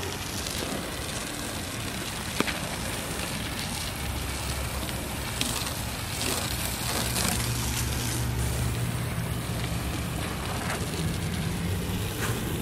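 Garden hose spraying water through an Adam's hose-end foam cannon, a steady hiss of spray. A low, steady engine-like hum comes in underneath about four seconds in.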